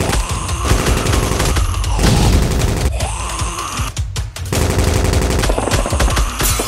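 Rapid bursts of gunfire sound effects over action background music with a heavy low beat. The firing briefly drops out about four seconds in.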